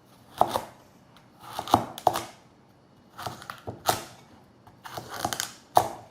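Kitchen knife cutting a halved old cucumber into large chunks on a cutting board: about seven separate cuts, each a short crunch through the firm flesh onto the board, spaced roughly a second apart.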